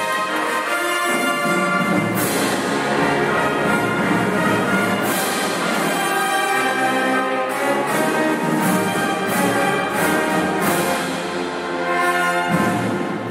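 Marching band playing: the brass section holds full chords, changing every second or two, with a few drum and cymbal hits.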